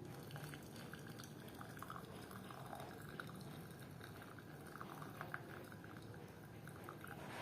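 Hot herbal turmeric decoction poured through a tea strainer into a glass: a faint, steady trickle with small scattered drips.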